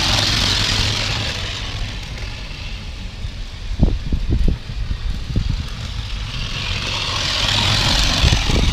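Small live-steam engine on a track-testing sled running along garden-railway track: a steady hiss, loudest as it passes close at the start and again near the end, fainter in between. Underneath is a low rumble, with a few thumps about four seconds in.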